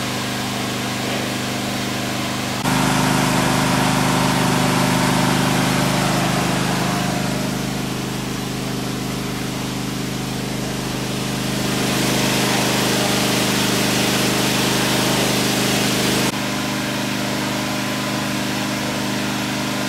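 Heavy diesel engines idling steadily, with a hiss over the top. The mix jumps abruptly about three seconds in and again a few seconds before the end.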